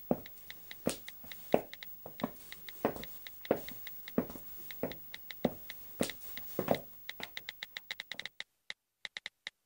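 Block-heeled sandals clicking on a hard floor at a walking pace, about three steps every two seconds, with the light ticks of a smartphone's on-screen keyboard between them. About seven seconds in the steps stop and only the quick keyboard clicks go on, about five a second.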